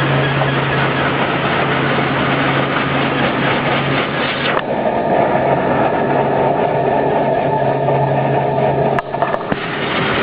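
Spiral sand-washing machinery running: a steady mechanical din with a low hum. It changes abruptly about halfway through, and there are a couple of sharp clicks near the end.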